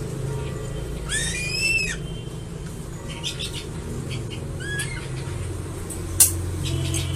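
Crested eagle calling: a high, whistled call that rises and then falls about a second in, and a shorter call a little before the five-second mark. A sharp click comes about six seconds in, over a steady low hum.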